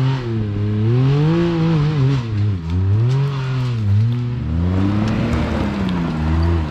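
Off-road side-by-side engine revving up and down in repeated throttle bursts, pitch rising and falling about once a second, as the vehicle works its way up a steep rock climb.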